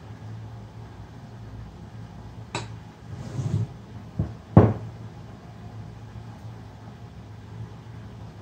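A few knocks and clunks of a glass and a blender jug being handled and set down on a tabletop while milkshake is poured, the loudest about four and a half seconds in, over a low steady hum.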